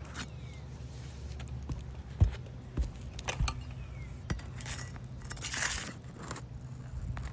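Roughly 20-year-old asphalt shingles being prised loose from their sealant strip: a few sharp knocks and clicks, then scraping and crackling as the shingle tabs pull free from the stubborn old sealant.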